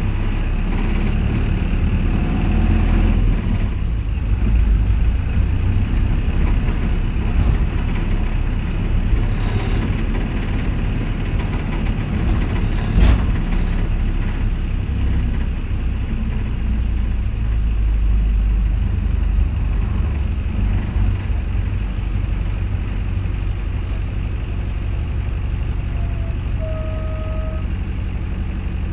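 Hino Liesse small bus (KC-RX4JFAA) running, its diesel engine rumbling and swelling and easing with the driving, heard from inside the cabin. A sharp click about halfway through, and a short steady beep-like tone near the end.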